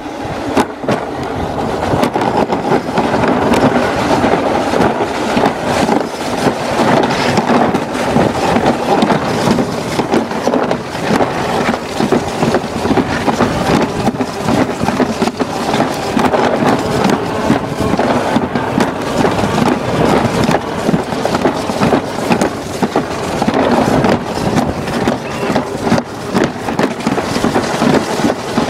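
Alpine slide sled running fast down its track, a loud steady rumble with constant rattling and knocking.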